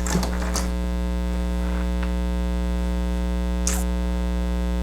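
Steady electrical mains hum with many overtones, unchanging throughout, with a few faint clicks near the start and one more about three and a half seconds in.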